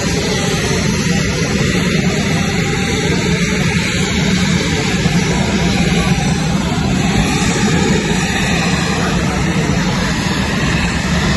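Steady aircraft engine drone with a low hum underneath, holding at one level throughout.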